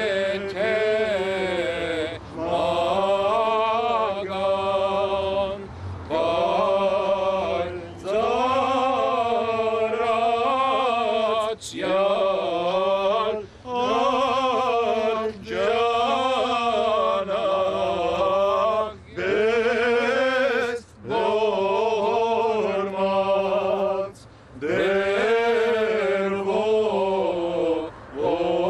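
A solo male voice chanting an Armenian church hymn, in long, wavering, ornamented phrases broken every few seconds by short breaths.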